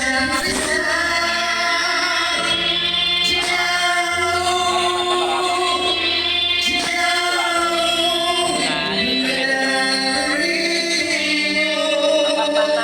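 Music with singing: long held, wavering sung notes over a steady accompaniment whose low notes change in steps.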